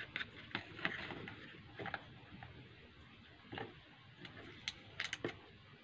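A small electronics box and its white insert tray being handled as a pocket wifi is unpacked: scattered light taps, clicks and rustles, with a quick cluster of clicks near the end.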